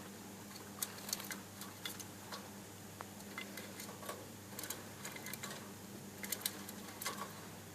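Budgies bathing: irregular light taps and small splashes, some in quick clusters, over a steady low hum.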